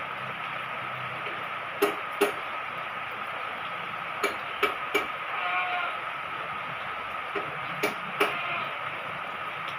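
Steady rain hiss, with a few sharp knocks in pairs and threes, like drips or taps, and a short faint animal call about halfway through.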